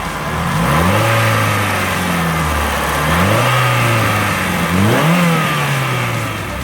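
Renault Clio 2 RS's 2.0 16-valve four-cylinder engine, breathing through a Miltek exhaust, revved three times: each time the pitch climbs quickly and then falls back.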